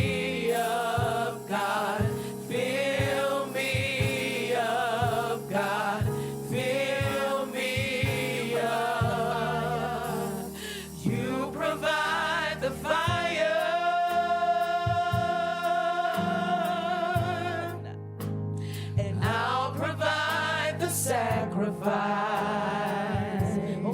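Gospel choir singing a slow worship song, the voices wavering with heavy vibrato, with one long held note a little past the middle.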